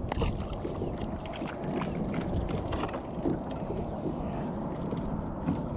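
Wind buffeting the microphone in a steady low rumble, with scattered light clicks and taps.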